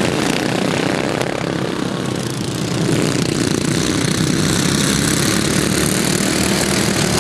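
A pack of racing lawn mowers with stock single-cylinder flathead engines running flat out together, a steady engine drone. It dips a little about two seconds in and swells again as the pack comes round.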